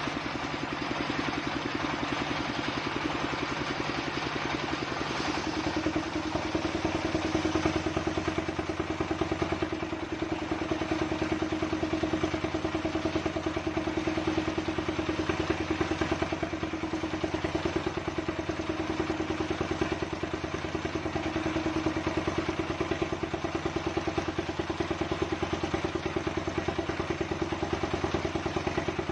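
Engine that drives a table circular saw running steadily, with a fast, even chugging pulse under a steady hum. Its tone shifts slightly about five seconds in.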